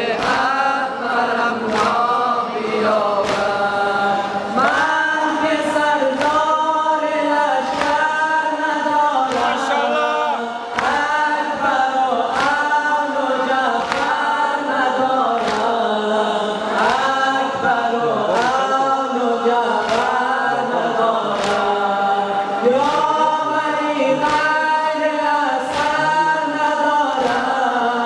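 Men's voices singing an Afghan noha (Shia Muharram lament) together into microphones, a lead line answered by the group. A regular beat of chest-beating, about one stroke a second, keeps time under the singing.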